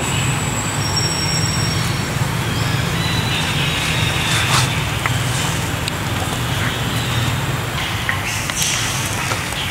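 A steady low rumble with a hiss over it, unbroken throughout, with a few faint clicks in the middle.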